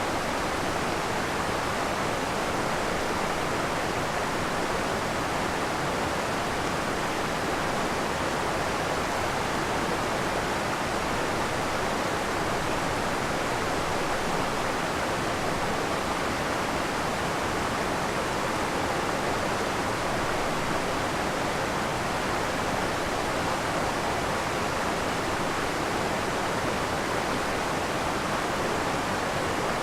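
Sweet Creek Falls, a creek waterfall, pouring steadily: an even, unbroken water noise that never changes.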